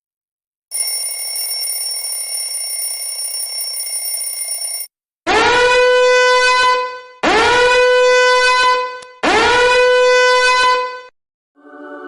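Sound effects: a steady high-pitched electronic tone for about four seconds, then three horn-like blasts of just under two seconds each, each sliding up in pitch as it starts.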